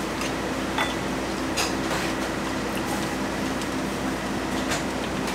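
Steady background hum of a ramen shop kitchen, with a few light clicks now and then.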